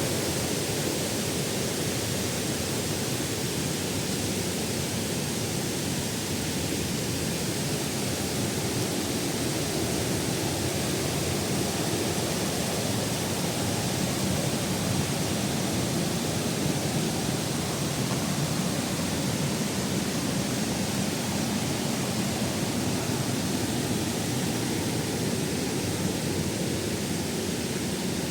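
Waterfall: a steady rush of falling, splashing water.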